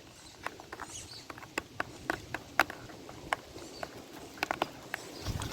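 Cheap plastic toy robot being handled and clipped back together: a dozen or so sharp, light plastic clicks and ticks at irregular intervals.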